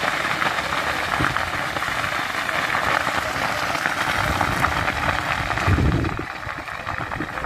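Vegetation fire burning: a dense, continuous crackling of burning brush and dry leaves, with a brief low rumble about six seconds in.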